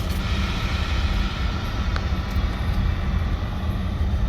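Steady low rumble of a moving bus, engine and road noise heard from inside the passenger cabin, with a faint tick about two seconds in.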